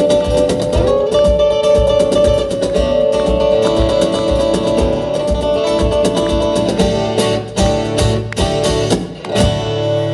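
Live band playing an instrumental passage led by a fast-strummed acoustic guitar over a steady beat. It settles onto a held chord near the end.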